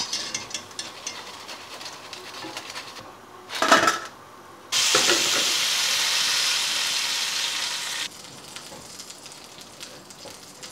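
Medu vadas frying in hot oil, crackling as a wire strainer moves through them, with a brief clatter about three and a half seconds in. Then a loud, steady sizzle of about three seconds that starts and stops abruptly as a hot tempering of dried red chillies and curry leaves hits the sambar, followed by quieter crackling as the sambar is stirred.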